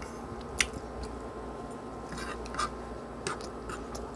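A metal fork tapping and scraping on a wooden cutting board as it gathers dry crumbs, giving a handful of sharp, irregular clicks, the loudest about half a second in, over a steady low hum.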